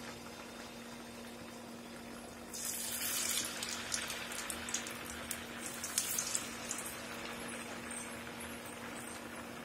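Vada batter deep-frying in hot oil in a kadai, sizzling steadily. About two and a half seconds in, the sizzle grows louder with crackling pops, then eases back to a steady sizzle.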